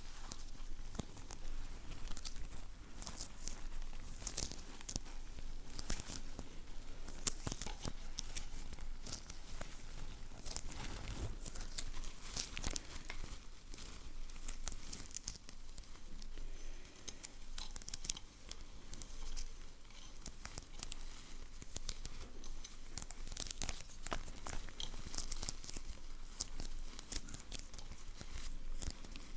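Close-miked ASMR sticky and crinkle sounds: sticky material peeling and crinkly wrapping being handled, making dense, irregular crackling and tearing noises.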